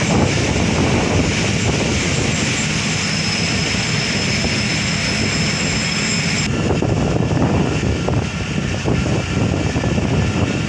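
Passenger train running along the track, heard from an open coach door: a steady rumble of wheels and carriages mixed with wind rushing past. A faint high whine rises over it for a few seconds in the middle, and the high hiss drops away about six seconds in.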